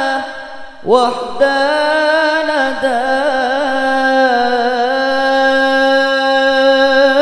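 A man singing sholawat, an Islamic devotional song, drawing out long held notes with wavering ornaments. The voice dips out briefly just after the start, then slides up into the next long note about a second in.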